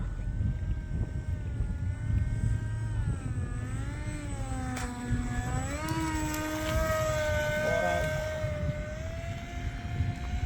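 Electric motor and propeller of an E-flite ICON A5 RC seaplane whining in flight, its pitch dipping and swooping up about halfway through, then holding steadier. Under it there is a low wind rumble on the microphone.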